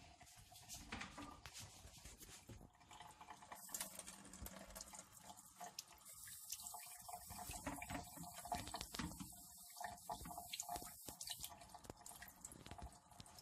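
Kitchen faucet running into a stainless steel sink, the stream splashing over hands and a trout fillet as it is rinsed; strongest in the middle.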